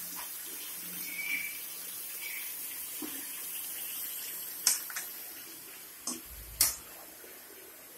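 A steady hiss as raw chicken pieces cook in masala in an aluminium kadai on a gas stove. Several sharp metal clinks from the ladle and pan tongs against the pan come in the second half.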